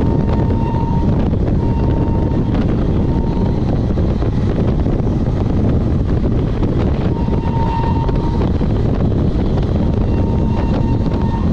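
Passenger train running at speed, heard from on board, with a steady low rumble and wind buffeting the microphone. A faint thin whine comes and goes several times.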